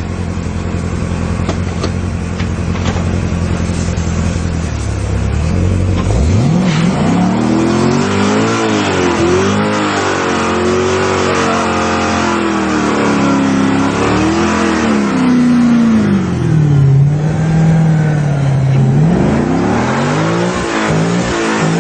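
Chevrolet Corvette Z06 V8 idling steadily, then about six seconds in revving hard, its pitch rising and falling again and again during a burnout, over the hiss of the spinning rear tyres.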